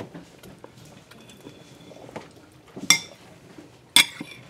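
A metal fork cutting cake on a plate, with faint taps and then two sharp clinks of the fork striking the plate about a second apart near the end.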